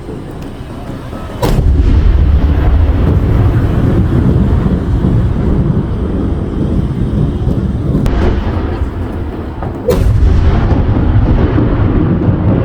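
Large aerial firework shells bursting: a sharp bang about a second and a half in, then several seconds of deep rumbling booms, and another sharp bang near the end followed by more rumbling.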